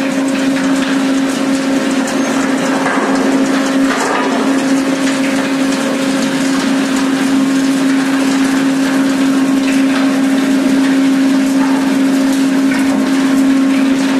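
Continuous ship unloader running, its bucket chain scooping bulk cargo out of a ship's hold: a steady, loud machine hum with one constant low tone.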